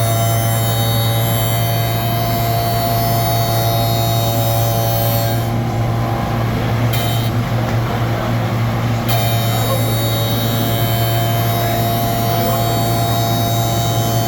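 CNC router running, a steady low hum with several high whining tones; the high whine drops away twice for a second or two, between about five and nine seconds in.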